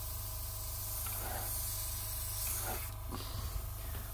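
Airbrush spraying a light mist of paint past a masking-tape edge, a steady hiss that cuts off about three seconds in.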